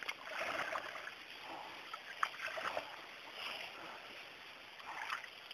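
Faint, irregular splashing and sloshing of shallow water, with a few small knocks.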